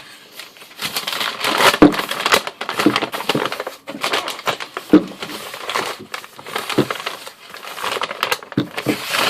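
Packaging being handled and unwrapped as an item is pulled out of a shipping box: dense crinkling and crackling with many small clicks.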